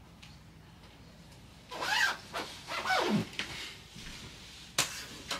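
A jacket zipper pulled in two quick rasping strokes, about two and three seconds in, followed by a sharp click near the end.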